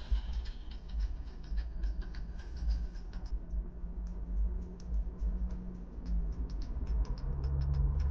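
Inside a moving car: a steady low rumble of road and engine, with a quick run of small light clicks or taps over it.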